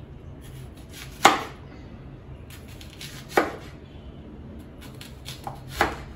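Kitchen knife slicing a red onion into rings on a plastic cutting board: three sharp knocks of the blade hitting the board, about two seconds apart, the first the loudest, each after a few faint cutting strokes.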